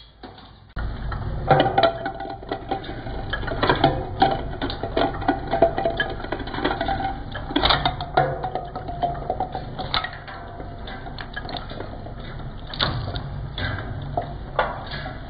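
Twin-shaft shredder running with a steady low hum, its cutter discs catching and knocking a wooden bowl about, with many sharp knocks and cracks as the wood chips and breaks. The loud knocking starts suddenly about a second in.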